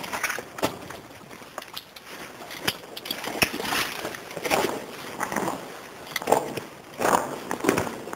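Footsteps crunching and scraping on the floor of a disused railway tunnel at a steady walking pace.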